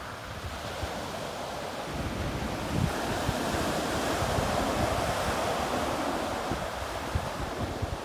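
Small surf breaking and washing up a pebble beach. The wash swells about three seconds in and eases off near the end, with wind buffeting the microphone.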